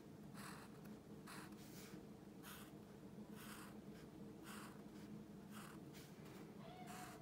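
Black Sharpie marker drawing on paper: about a dozen short, quick strokes, each a faint scratch.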